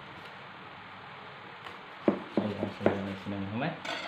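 Quiet room tone, then about two seconds in a man's voice speaking briefly, with a short rustle near the end.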